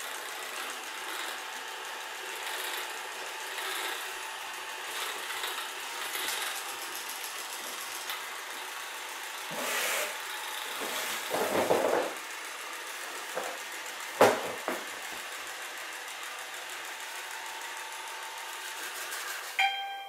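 Amarey A900 robot vacuum running steadily as it drives itself back to its charging dock, with a few knocks along the way. Near the end a brief electronic tone sounds and the motor noise cuts off as it docks.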